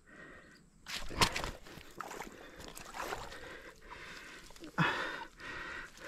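Water splashing and scattered knocks as a carp shot with a bowfishing slingshot is pulled in, with one sharp knock about a second in and a louder noise about five seconds in.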